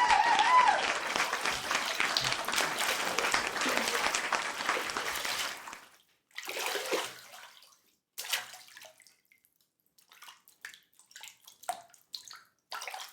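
Steady rush of pouring or splashing water that fades away about six seconds in, followed by scattered drips and small splashes.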